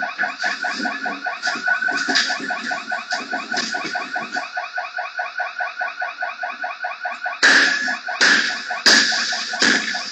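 Electronic alarm sounding a rapid pulsing tone, about six pulses a second. From about seven and a half seconds in, several loud harsh bursts of noise come over it.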